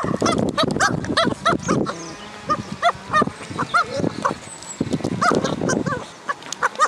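Pomeranian–Chihuahua mix dog vocalizing in play as it pushes its ball: a string of short squeaky yips, two to three a second, over a low grumbling growl. There is a brief lull, then a fresh burst of yips.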